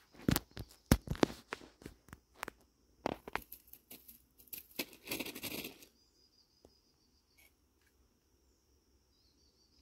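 Irregular crackling and rustling for about the first six seconds, then only a steady high insect drone from the surrounding undergrowth.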